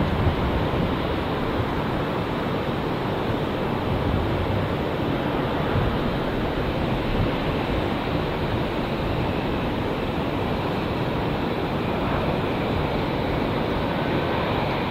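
Steady, even roar of a jet airliner, a dense rush of noise without distinct tones or changes.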